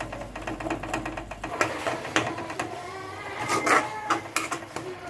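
A cooking utensil scraping and clattering in a pan of frying soya chunks: a rapid, irregular run of clicks and scrapes, loudest a little past the middle.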